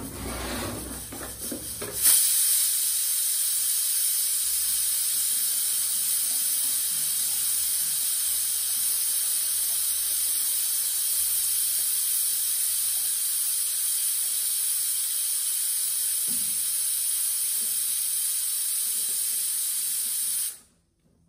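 Steady hissing from cooking on the stove. It sets in about two seconds in, holds level, and cuts off abruptly near the end.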